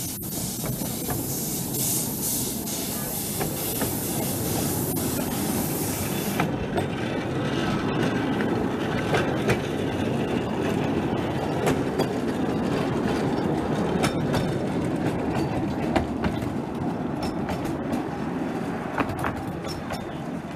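Small 10¼ in gauge steam train pulling away: steam hisses from the locomotive and cuts off abruptly about six seconds in. After that, the coaches run past with a steady rolling rumble and rapid clicks of the wheels on the track.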